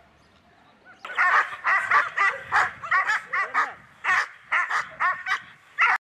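Dog barking rapidly and insistently, about three barks a second, starting about a second in and cutting off suddenly at the end.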